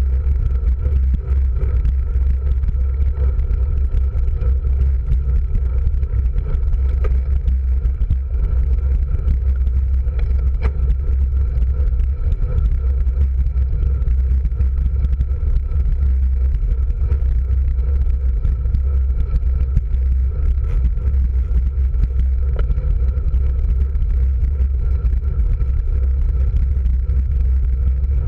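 Wind rushing over the microphone of a camera on a moving road bike, a loud, steady low rumble, mixed with the hum of the tyres on asphalt.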